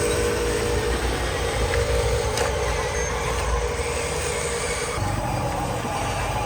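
Radio-controlled model trucks running, a steady mechanical hum and whine whose pitch shifts about five seconds in, with one sharp click partway through.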